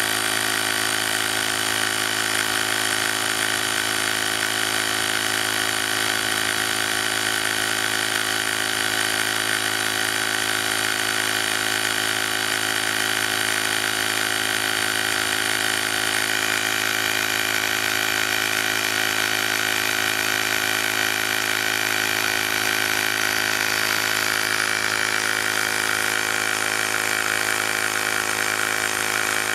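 Small electric compressor motor of a cordless digital tire inflator running steadily, pumping up a bicycle tire toward its set pressure of 3.5 atmospheres.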